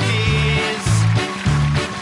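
Upbeat band music in a German beer-hall style, its bass line bouncing between two low notes about four times a second.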